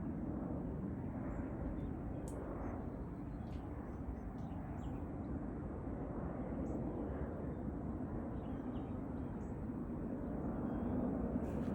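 Aircraft flying over, a steady low rumble that swells slightly near the end.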